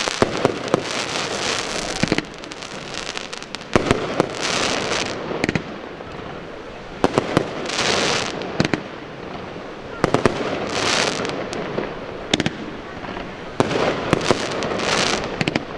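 Aerial fireworks display: shells bursting in a string of sharp bangs at uneven intervals, with several second-long stretches of hissing between them.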